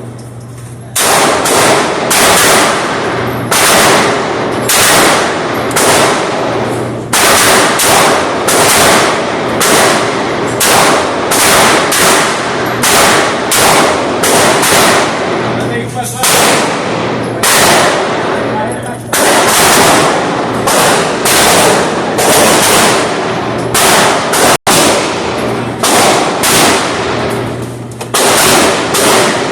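Gunfire: a long string of shots, about one to two a second with a few brief pauses, each with a short ringing echo.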